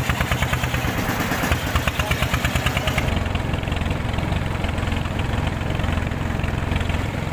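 A pompong's inboard engine running, with an even chugging of about seven beats a second. About three seconds in it changes abruptly to a steadier, smoother drone as the wooden boat moves along the river.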